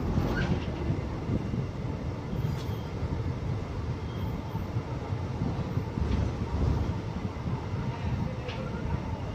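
Train running, a steady low rumble.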